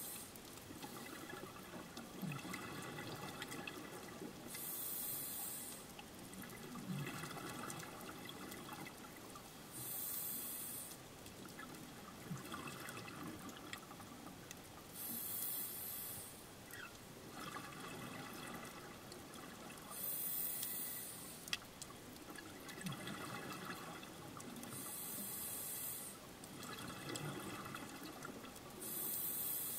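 Scuba diver's breathing heard underwater through the camera housing: regulator hiss and a rush of exhaled bubbles coming back in a regular cycle about every five seconds.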